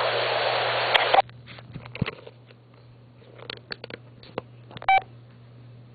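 Recorded telephone line: a loud hiss that cuts off abruptly about a second in, then a quiet line with a low steady hum, faint clicks and one short touch-tone keypad beep near the end.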